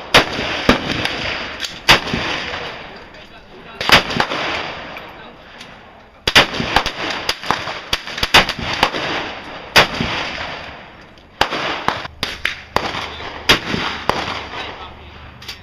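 Gunshots fired at an indoor shooting range: an irregular series of sharp shots, some singly and some in quick clusters, each ringing off the walls.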